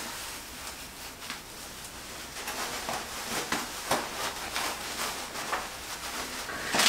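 Soft rustling and brushing as hands twist braids into a bun and work a fabric scrunchie around it, over a faint steady hiss; the rustles come as short strokes in the second half.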